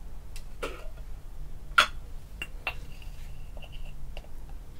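A few scattered light clicks and knocks, the loudest about two seconds in, over a low steady hum.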